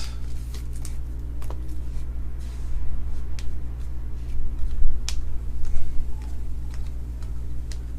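Light handling noise from trading cards and their packaging: a few sharp clicks and soft rustles, over a steady low electrical hum.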